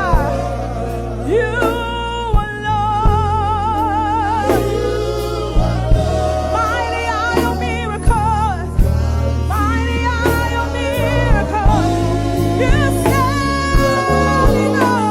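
Live gospel praise music: a lead singer holding long notes with wide vibrato over a band with steady bass and drum hits.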